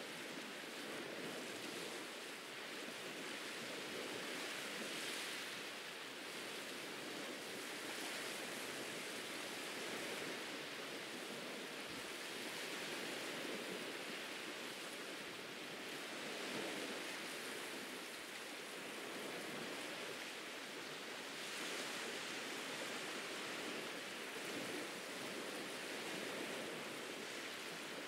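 Ocean surf washing onto a beach: a steady hiss of waves that swells and eases every few seconds.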